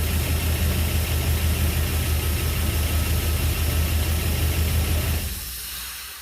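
Jeep Grand Cherokee engine idling steadily on its first run after a rebuild with new connecting rod bearings, then switched off about five seconds in, the sound dying away.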